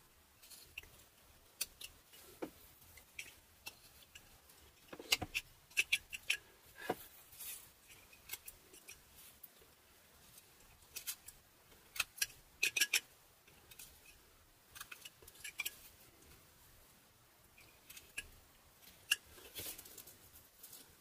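Carving knife slicing small shavings from a butternut figure: short crisp cuts and scrapes coming in little clusters with pauses between.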